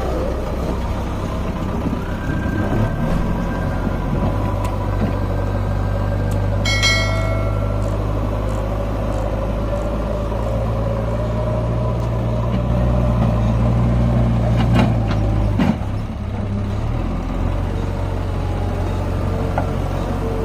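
Backhoe loader's diesel engine running steadily, working under load so that its note rises for several seconds in the middle and drops back. A brief high whine is heard about seven seconds in.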